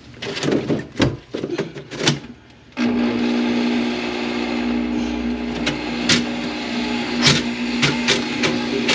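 A few knocks and clanks, then about three seconds in an electric drain-cleaning machine switches on and runs steadily, a motor hum with occasional sharp clicks from the cable. It is working on a kitchen sink drain line clogged with grease.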